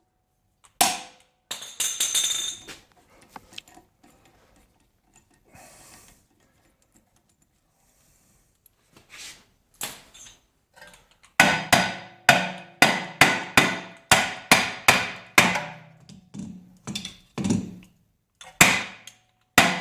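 Hammer striking metal: a few scattered blows, then, from about halfway through, a fast run of sharp ringing strikes, roughly three a second.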